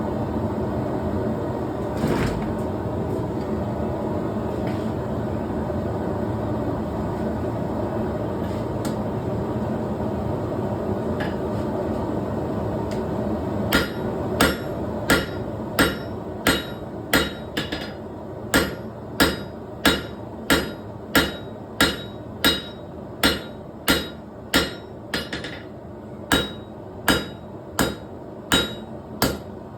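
A steady rushing roar with a few isolated knocks, then, from about halfway in, a blacksmith's hammer striking steel on an anvil in a steady rhythm of about one and a half blows a second, each blow ringing.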